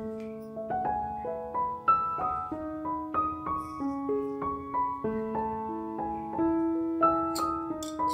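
Background music: a gentle piano-style keyboard melody of single notes, two or three a second.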